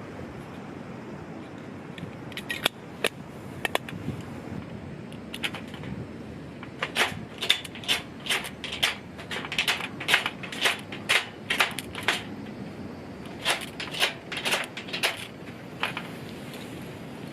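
A series of short, sharp clicks and clatters in quick irregular runs, like gear or small hard objects being handled, over a steady low background.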